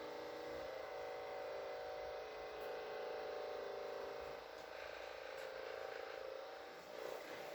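Steady electric hum with a fast pulse in it, fading out near the end.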